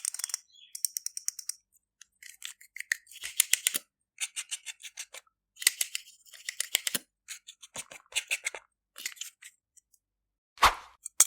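Slime being squeezed and worked by hand close to the microphone: short spells of rapid sticky clicks and crackles every second or so, with a sharper, louder snap near the end.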